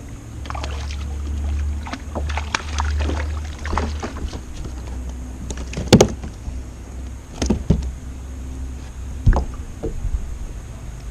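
Low rumble of wind on the microphone with several sharp knocks, the loudest about six seconds in, as a small trout is reeled in and handled in a kayak.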